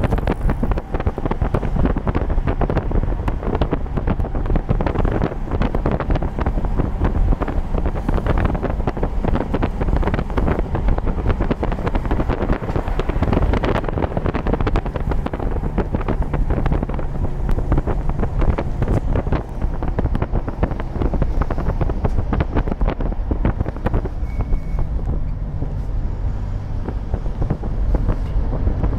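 Wind buffeting the microphone and road noise from a moving car, with the engine and passing traffic.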